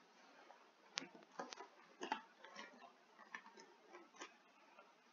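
Faint, irregular clicks and crinkles of a snack bag being handled as a puff is taken out, most of them between about one and four seconds in.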